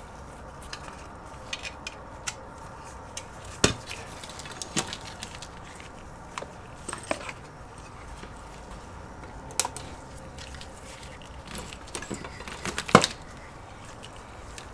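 Power-supply leads and clips handled on a workbench: scattered light clicks and knocks, a handful spread through, the sharpest near the end.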